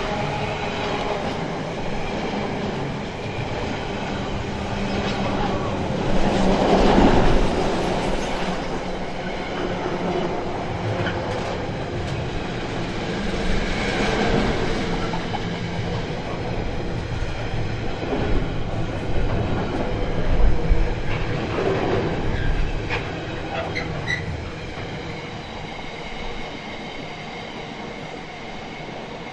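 Freight train wagons rolling past with a continuous rumble and repeated clicks of wheels over rail joints, with a faint, steady high wheel squeal. It gets quieter over the last few seconds as the train draws away.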